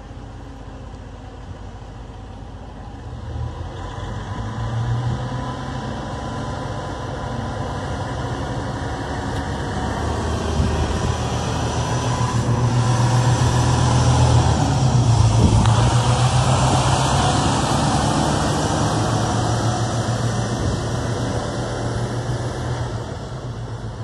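Diesel engine of a Freightliner prime mover hauling an oversize-load flat-top trailer, pulling away and accelerating past. It builds in loudness from a few seconds in and is loudest about halfway through.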